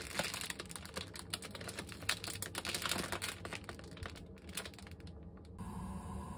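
Plastic packet of Nissin Tokumasa instant curry udon crinkling as it is handled, a dense run of crackles for about five and a half seconds. Then the crackling stops abruptly and a steady hum takes over near the end.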